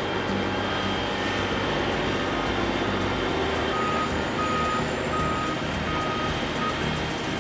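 Diesel engine of a heavy earthmoving machine running steadily under load, with a reversing alarm beeping five times, about one beep every 0.7 seconds, through the middle of the stretch.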